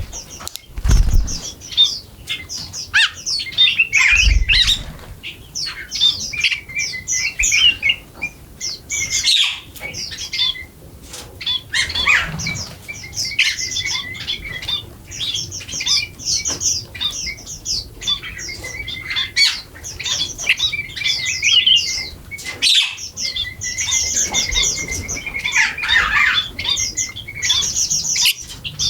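A flock of small birds chirping and squawking non-stop, many short high calls overlapping, with a few brief low thumps.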